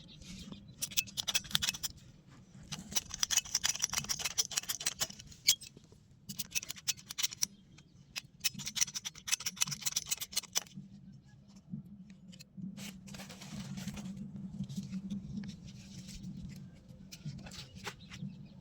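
PVC pipe being cut with a hand pipe cutter: four bursts of rapid clicking as the cutter is worked through the pipe, followed by softer scraping handling noise.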